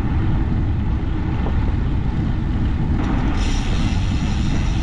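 Wind rushing over a bike-mounted GoPro's microphone, with tyre noise, as a road bike rolls along a bike path at about 20 km/h. A brighter hiss joins about three and a half seconds in.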